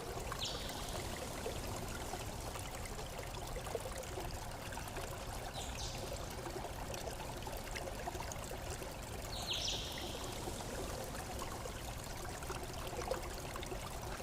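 Steady rush of a flowing stream, with three short high chirps a few seconds apart.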